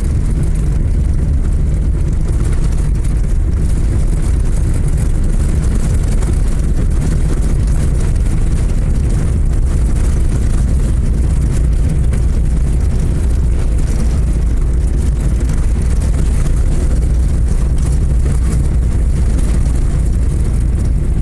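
Vehicle driving along a rural road: a steady, loud low rumble of engine and road noise.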